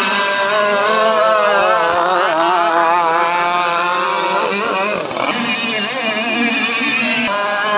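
Several radio-controlled racing boats powered by small two-stroke chainsaw and brushcutter engines, running together on the water. Their overlapping engine notes waver up and down in pitch as the boats race.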